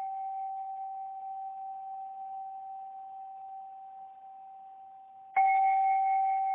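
A struck bell ringing one clear tone with fainter overtones, slowly fading, then struck again about five seconds in and ringing on.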